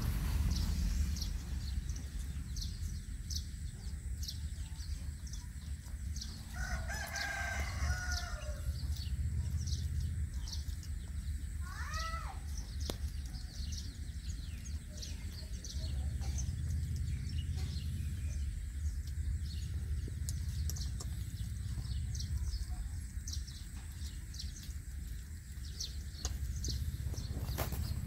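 Two animal calls over a steady low rumble and a scatter of faint high clicks: a drawn-out, wavering call of about two seconds starting six to seven seconds in, and a short call that rises and falls about twelve seconds in.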